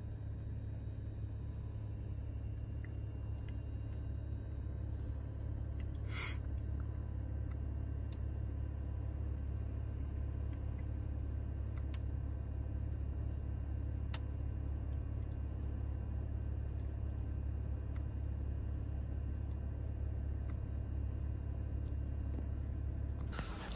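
Steady low rumble of a vehicle running, heard from inside, with a brief hiss about six seconds in and a few faint clicks.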